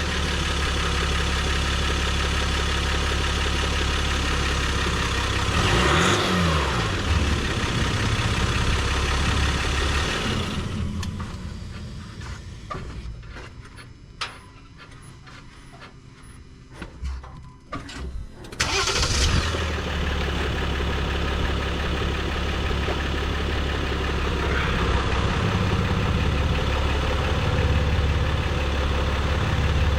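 A Jeep Gladiator's 3.0-litre EcoDiesel V6 turbodiesel idles steadily on its first run after a fuel filter change and priming, with a brief rise and fall in pitch about six seconds in. About ten seconds in it winds down to a stop, leaving a few clicks. About eighteen seconds in it starts again suddenly and settles back to a steady idle.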